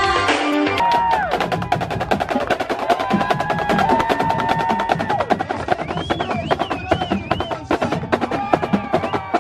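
A drumline of Yamaha marching snare drums playing fast, tight rhythms, with held tones over the top, one of them wavering in pitch in the second half.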